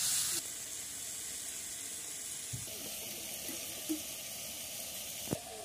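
Vegetables sizzling in oil in a wok over a wood fire, cut off suddenly about half a second in. A fainter steady hiss follows, with a few light knocks.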